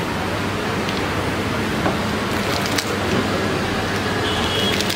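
Steady background noise of a busy open-air food stall, with a few light clicks and taps.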